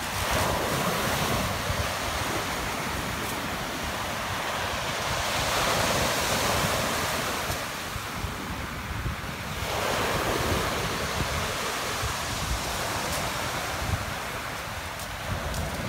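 Sea waves breaking and washing up a pebble beach, swelling louder every few seconds as each wave comes in, with wind buffeting the microphone.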